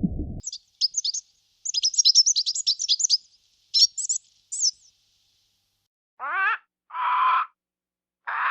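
A small songbird chirping and twittering in quick, very high trills for about four seconds. Near the end come three lower, separate calls, the first one falling in pitch.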